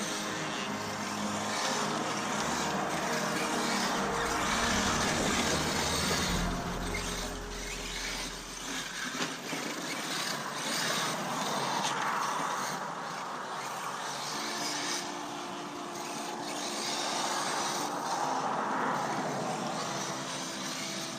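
Electric brushless radio-controlled car driving on dirt, its motor whine rising and falling with the throttle over tyre and gravel noise.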